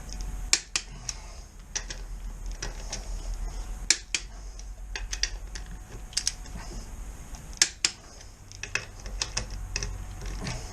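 Torque wrench set to 60 newton metres ratcheting and clicking as the motorcycle's rear wheel bolts are tightened in turn: a run of uneven clicks with a few sharper, louder clicks among them.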